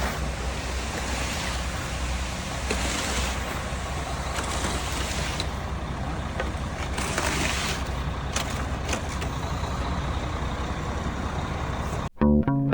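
Concrete mixer truck running with a steady low rumble and broad noise as concrete comes down the chute, with a few scattered knocks. Near the end it cuts off abruptly and guitar music starts.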